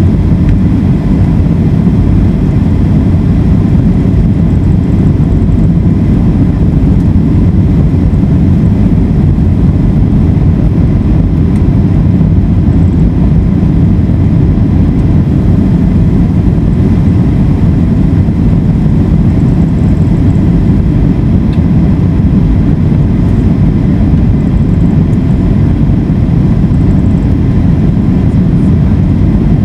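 Steady, loud cabin noise inside a Boeing 757 descending on approach: a low rumble of airflow and the jet engines, with a faint steady whine above it.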